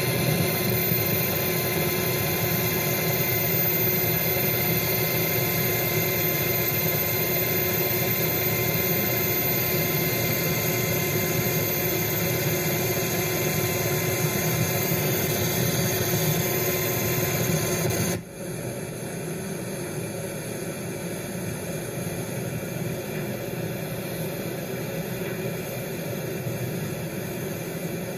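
Steady engine drone with several constant hum tones over a noisy rush. About 18 seconds in it cuts off abruptly to a quieter, similar drone.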